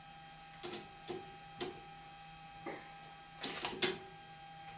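A handful of irregular metal clicks and knocks from hands working a lathe's three-jaw chuck and workpiece, the loudest near four seconds in, over a faint steady hum.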